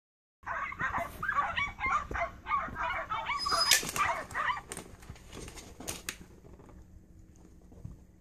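Dog whining and yipping in quick, high-pitched cries for about four seconds, with a few sharp clicks near the middle before the sound dies down.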